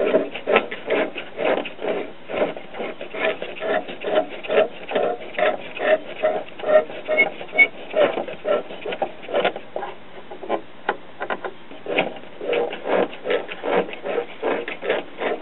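Irregular crackling static from the speaker of a Truetone 5-tube battery-set radio, with no station coming through: the set appears basically dead.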